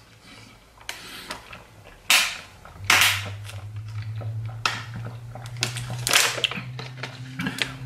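Thin plastic water bottle crackling sharply, several times, as it is gripped and squeezed while someone drinks from it.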